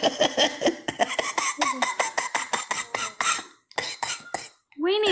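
A person's voice in rapid, breathy pitched pulses, about eight a second, then a break and a rising-and-falling vocal cry near the end.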